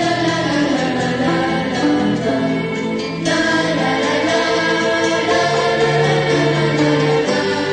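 Traditional Corsican chant: voices singing long held notes that shift in pitch every second or so.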